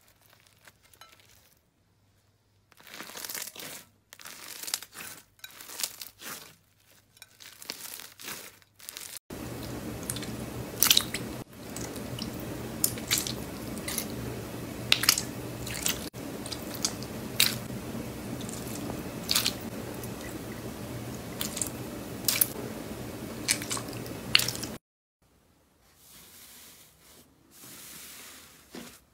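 Hands squishing and pressing slime, making crunchy crackles and sharp clicks. A bead-filled slime crackles first; from about nine seconds a glossy slime is squeezed, with a steady hiss under many sharp clicks, until a softer, quieter squish takes over near the end.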